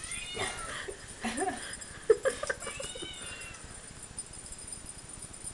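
Kitten mewing several times in short, bending calls over the first three seconds, with one sharp knock about two seconds in.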